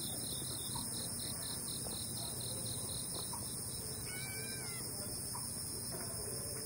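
Crickets chirping in a steady, even rhythm of about seven pulses a second, over a constant high insect hiss. A short wavering whistled call comes in about four seconds in.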